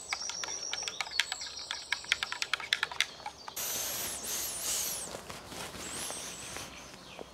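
Small birds calling over a quick, irregular run of crackling clicks. About three and a half seconds in, the sound changes abruptly to a steady hiss with high, swooping bird whistles over it.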